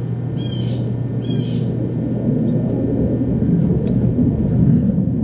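Low, steady rumble of distant fighter jets flying overhead, growing louder from about two seconds in.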